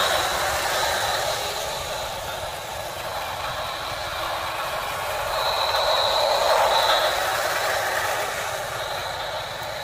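Battery-powered toy trains, a Plarail Kintetsu Urban Liner and a toy City Train, running on plastic track: small motors whirring with a thin high whine and wheels clattering. The sound swells as the trains pass close, loudest about six to seven seconds in.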